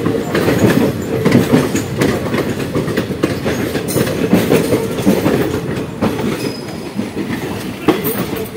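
Passenger train running, heard from an open coach doorway: a steady low rumble with irregular clattering of wheels over rail joints and points, while another train passes close alongside on the next track.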